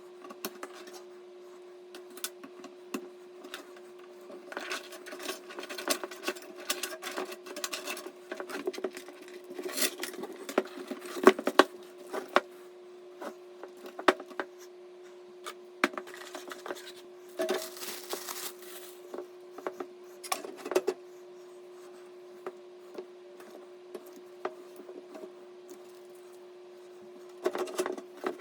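Irregular clicks, taps and light knocks of parts being handled during a PC build, with a brief stretch of rubbing or scraping partway through, over a faint steady hum.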